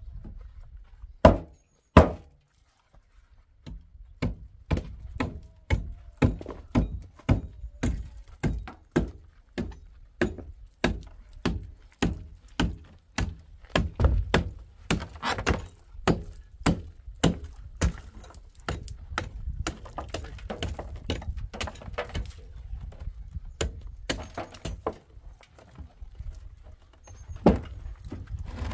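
A series of hard knocks or thuds. Two loud ones come about a second and two seconds in. From about four seconds in, blows come steadily at roughly two to three a second, and after the middle they give way to a quicker, quieter clatter.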